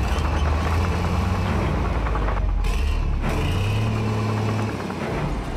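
Diesel engine of a large Volvo tracked excavator running with a steady low drone.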